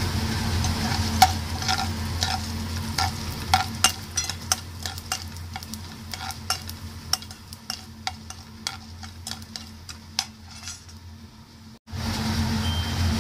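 Steel ladle stirring and scraping grains of dal frying in oil in a nonstick kadai, with repeated clicks of the ladle against the pan over a faint sizzle. A steady low hum runs underneath.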